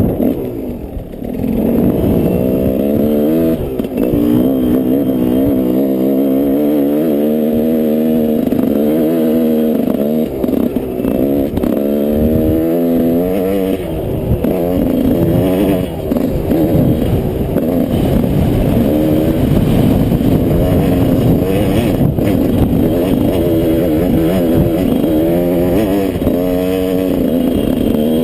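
Yamaha 125 off-road motorcycle engine running under way, its revs rising and falling again and again as the throttle is worked.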